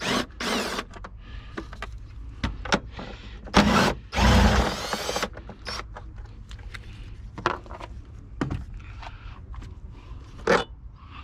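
Tool work on the car battery's 10 mm hold-down bracket bolts: scattered clicks and knocks of metal parts, with a short whirring run about four seconds in as the bolt is loosened.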